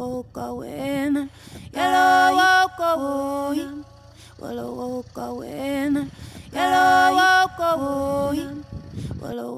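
Background music: a single voice sings a slow melody in long held notes with vibrato, in phrases with short gaps, over a steady low drone that cuts off near the end.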